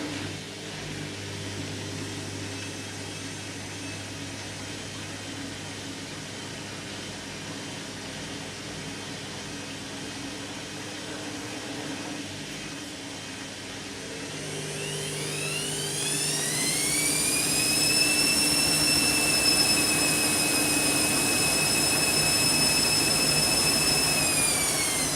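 Candy washing machine on its final spin: the drum motor hums steadily, then winds up into a high whine that climbs in pitch for a few seconds, holds steady and louder at full spin speed, and begins to drop again near the end.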